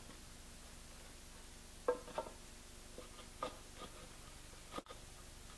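A few light wooden knocks and clicks as the two halves of a hand-cut Japanese scarf joint are slid together and seated: a pair of knocks about two seconds in, then a couple of fainter ones over the next two seconds.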